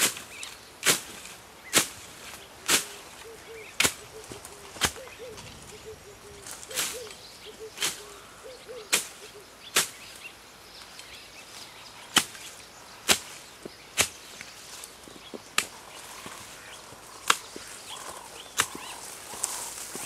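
A steady series of sharp knocks or strikes, about one a second, with a couple of short pauses.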